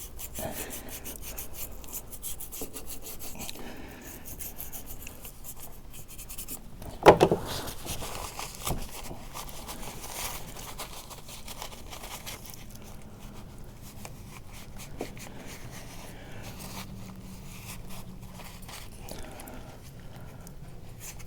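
Toothbrush scrubbing the inside of a kayak's rudder steering handle housing, a steady run of short rubbing strokes, with one sharper knock about seven seconds in.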